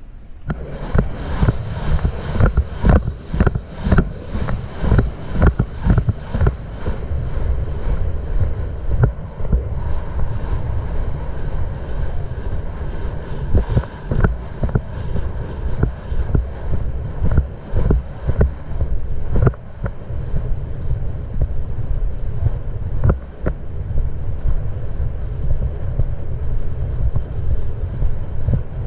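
Wind buffeting a rider-mounted action camera's microphone as a racehorse runs on a dirt track, with its hoofbeats thudding about twice a second, clearest in the first several seconds.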